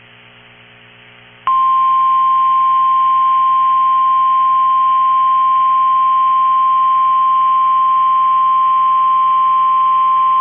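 NOAA Weather Radio 1050 Hz warning alarm tone: one loud, steady, unbroken beep starting about a second and a half in and holding for about nine seconds, after a faint low hum. It is the alert tone that signals a warning message follows, here a severe thunderstorm warning.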